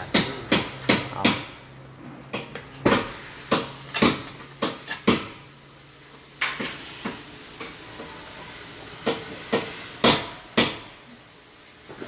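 Sharp metal-on-metal knocks from tools working on a car's front suspension strut: a quick regular series of strikes, about three a second, stopping about a second and a half in, then scattered single knocks.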